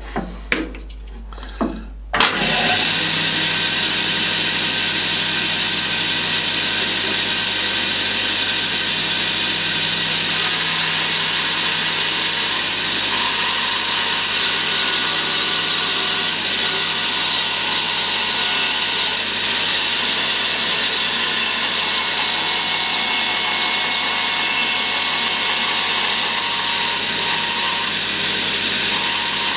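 A few light clicks, then about two seconds in a bandsaw starts and runs steadily at an even level as it cuts through a pine board on a 45-degree bevel.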